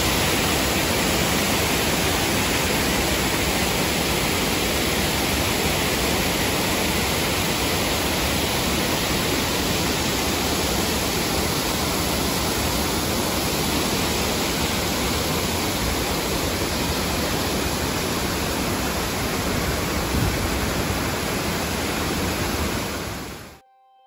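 Steady hiss of heavy rain falling, with no separate drops or strokes standing out; it cuts off suddenly near the end.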